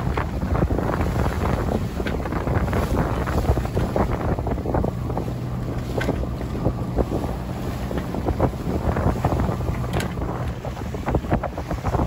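Strong wind buffeting the microphone on a sailboat's deck, over a low rumble, while choppy waves slap and spray against the bow in quick irregular splashes.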